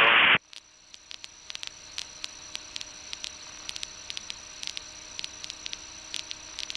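Aircraft radio and intercom audio: a voice transmission cuts off in the first half second, then a faint static hiss with irregular clicks and crackles over a faint steady hum, swelling slightly over the next second or two.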